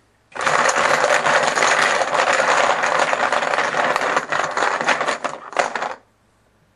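A hand stirring a pile of poker-style chips in a plastic bucket: a dense clattering of chips knocking together, starting just after the start and stopping abruptly about a second before the end.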